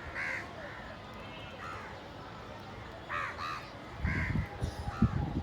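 Crows cawing: short harsh calls, one after another, about every second. From about four seconds in, low rumbling thumps run underneath.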